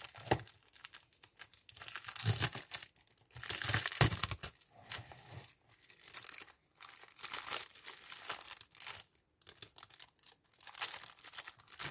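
Plastic film wrapping being torn and peeled off a small cardboard box of washi tapes, crinkling and rustling in irregular bursts, loudest a few seconds in.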